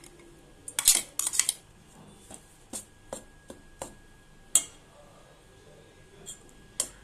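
Steel spoon clinking and scraping against a stainless steel bowl while stirring a spice paste: a quick cluster of loud clinks about a second in, then single clinks every half second or so, and a few more near the end.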